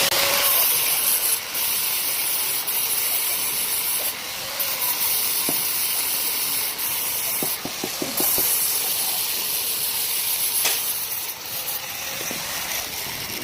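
A steady hiss, strongest in the high range, with a few faint ticks a little past halfway.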